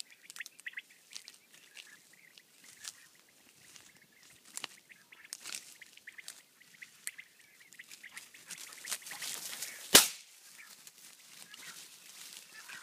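A single shotgun shot about ten seconds in, the loudest sound by far. Around it are scattered soft rustles in tall grass and faint bird calls.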